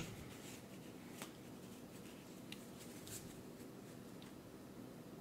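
Faint handling of game cards: a few light clicks and soft rustles as cards are picked up and set down, scattered through a quiet moment.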